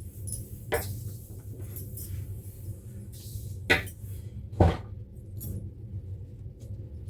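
A few sharp knocks and light clinks of small objects being handled, the two loudest close together about four seconds in, over a steady low hum.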